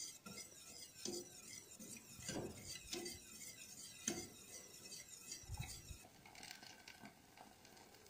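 Wire whisk faintly scraping and tapping against a stainless steel saucepan, about once a second, as a hot milk and cheese mixture is stirred continuously to thicken it. The strokes stop about six seconds in.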